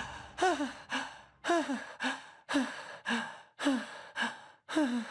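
A cartoon boy panting hard from exhaustion after long exercise: pairs of short gasping breaths, each falling in pitch, about once a second.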